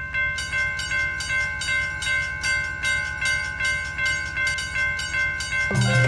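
Japanese level-crossing warning bell ringing its "kan-kan" in a steady rhythm of about two and a half strokes a second, over the low rumble of a train. Music comes in near the end.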